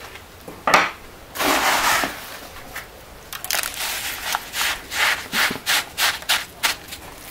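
Gloved hand packing and pressing wet crushed-pumice and Portland cement mix into a mould, gritty crunching and scraping: a longer scrape early on, then a run of short crunches about three a second.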